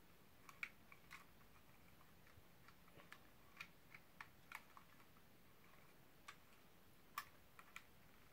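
Faint, scattered plastic clicks and taps from a handheld camcorder being handled and fitted onto its tripod grip, about a dozen irregular clicks over near silence.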